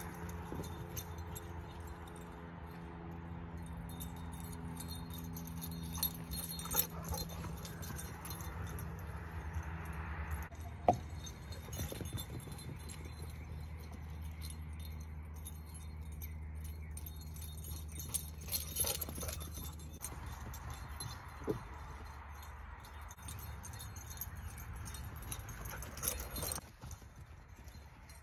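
A steady low hum, which stops near the end, with a few light metallic jingles and clicks, like the tags on a running dog's collar.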